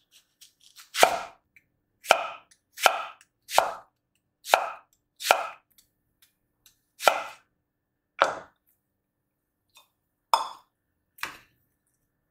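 A knife chopping food on a cutting board: about ten single, unhurried cuts at uneven spacing, each a short knock with a brief ring.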